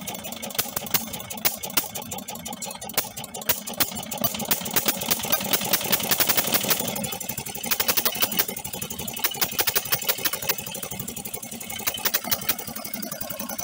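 Single-cylinder diesel power tiller engine running just after starting, its firing beats coming in a rapid even rhythm. It speeds up and grows louder a few seconds in, then drops back about halfway through. This is the engine's first run with a newly fitted piston.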